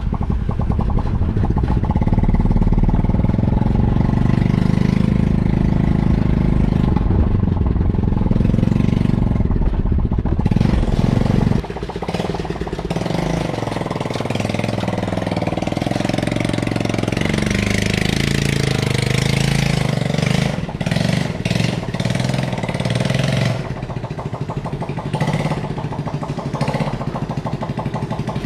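Microcar's motorcycle engine running loud with no muffler fitted, which makes it very noisy. It is heard first from inside the cabin while driving, then from outside with its pitch rising and falling on the throttle, and somewhat quieter near the end.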